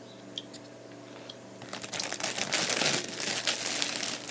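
Plastic packaging crinkling and rustling as it is handled. It starts about a second and a half in, over a steady low background hum.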